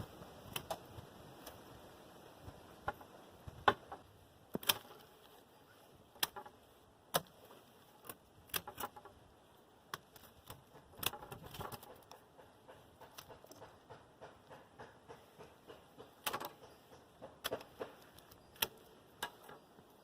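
Hand pruning shears snipping through grapevine canes: a long run of sharp, irregular clicks and snaps, sometimes several a second, with a few louder cuts.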